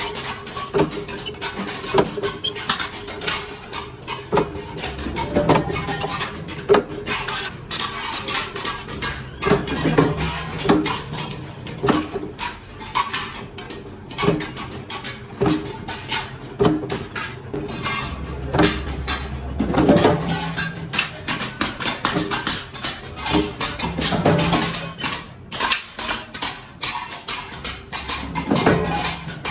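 Repeated sharp clanks and taps of metal work, irregular and frequent, with music faintly underneath.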